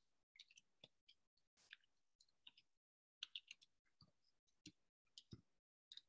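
Near silence: room tone broken by faint, irregular small clicks and ticks.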